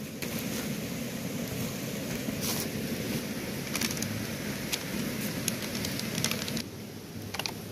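Hands mixing raw chicken pieces with spice powder on a paper plate: a crackling, squishy handling noise broken by sharp clicks, with brief rustles as a spice packet is tipped over the meat.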